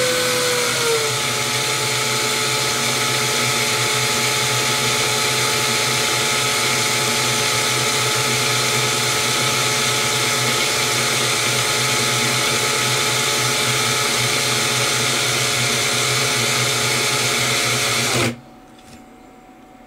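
Cordless drill running steadily, spinning a wooden stick with a bobbin on it to wind thread unravelled from organza ribbon. Its motor whine drops slightly in pitch about a second in and it stops suddenly near the end.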